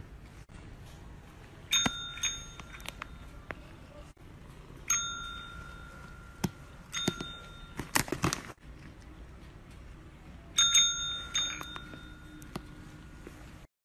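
A desk service bell, pressed by a cat's paw, gives several bright dings, about four in all. Each one rings on for a second or more. There is a quick run of sharp knocks about eight seconds in.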